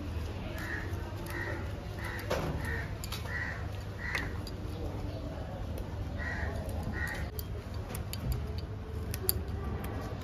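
A bird calling in a steady series of about six short calls, then two more a couple of seconds later, over small snaps and rustles of mint stems being picked apart by hand.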